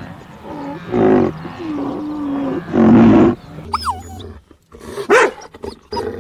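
A string of recorded animal sound effects: two short roars about a second and three seconds in, a long low call between them, then a run of higher gliding calls near the end.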